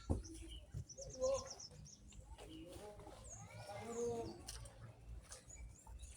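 Faint bird calls: a quick high chirping trill about a second in, then a couple of short high falling whistles a little past the middle, over faint wavering lower calls.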